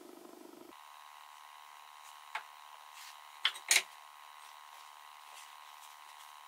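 Three short knocks of wood on the pine table top as a glued strip is set into the frame's corner, the last two close together and the loudest, over a faint steady hum.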